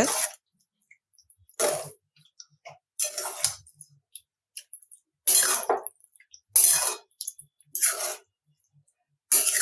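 A spatula scraping and stirring through raw chicken in thick, wet masala in a large metal pan. There are about six separate scraping strokes with short pauses between them.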